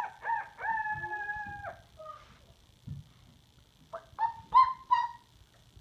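A high-pitched voice imitating a chicken. Short calls open it, with one long drawn-out call about a second in, then a quick run of short, sharp clucks near the end.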